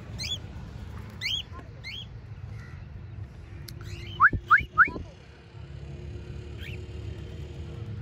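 Pet cockatiels calling in short rising chirps, with three loud, sharp rising whistles in quick succession about four seconds in.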